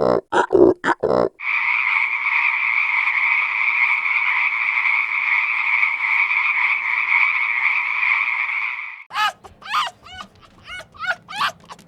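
Animal calls: a quick series of low pulsed calls, then a single long, steady, frog-like trill lasting about seven seconds, which cuts off. Rapid short chirping calls follow near the end.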